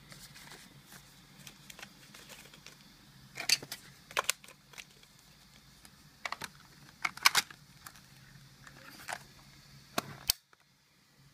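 Scattered sharp clicks and knocks of hard objects being handled, a dozen or so at irregular intervals, several of them loud.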